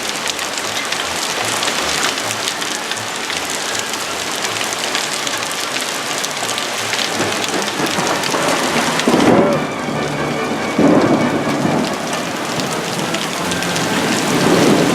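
Heavy rain with hail falling, a dense hiss full of fine pattering ticks. About nine seconds in the hiss eases and two louder rumbles of thunder follow, about two seconds apart.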